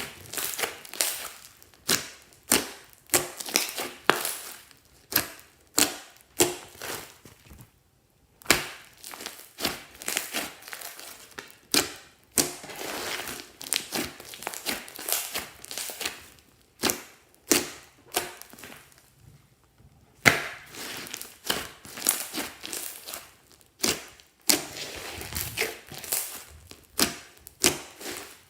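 Slime being squeezed and played with, giving a run of sharp pops and crackles, at times in quick clusters, with brief pauses.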